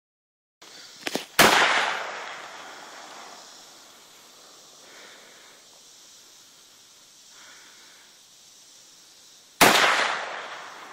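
Two AR-15 rifle shots about eight seconds apart, each followed by a long echo that dies away over a second or more. Two faint clicks come just before the first shot.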